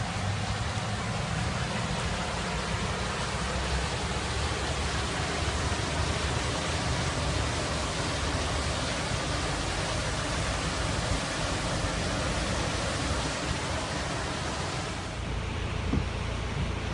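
Heavy rain in an intense thunderstorm: a steady hiss of rain with wind rumbling on the microphone. Near the end the hiss thins.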